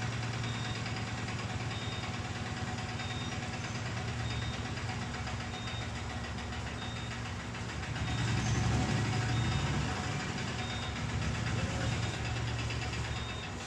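A motor humming steadily with a fast pulse, louder for a couple of seconds about eight seconds in, and dropping away near the end. A faint short high beep repeats about every second and a quarter.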